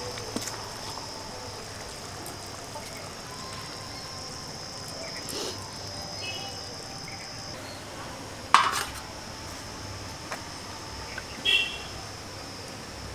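Metal cooking pot and utensils clinking a few times, the sharpest clink about two-thirds of the way through and a ringing one a few seconds later, over a steady high-pitched hum.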